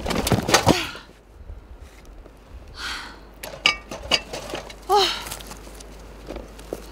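Camping bags and gear being handled: rustling fabric and plastic with scattered knocks and clicks, and a brief swish about three seconds in. Short falling squeaks sound near the start and again about five seconds in.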